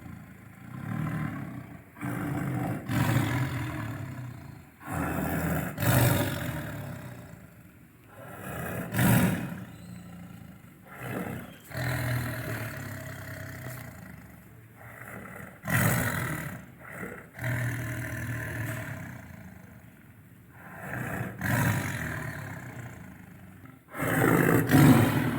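Tiger roaring and growling in a long series of low calls, a new call every second or two.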